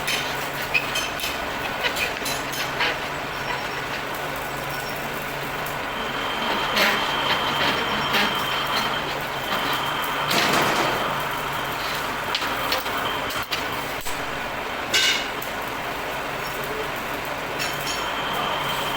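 Machinery running steadily, with scattered metal knocks and clanks and a faint high whine that comes and goes.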